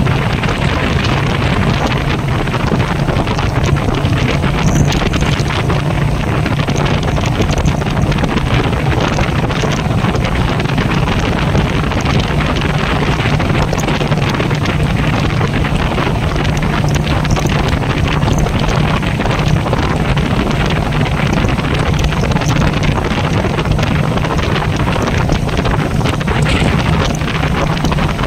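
Royal Enfield Meteor 350's single-cylinder engine running steadily at cruising speed, with wind buffeting the microphone.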